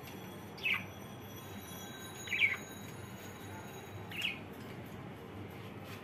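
A budgerigar gives three short, high chirps about a second and a half apart, each sliding down in pitch, the middle one loudest.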